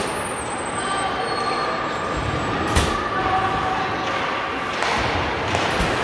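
Noise of a game in a large arena: spectators' voices and shouts over a steady background, with one sharp knock nearly three seconds in.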